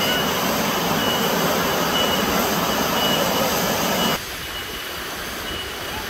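Waterfall rushing, a steady loud roar of falling water, cutting suddenly about four seconds in to the quieter, softer rush of a shallow rocky stream. A thin high note repeats about once a second through it.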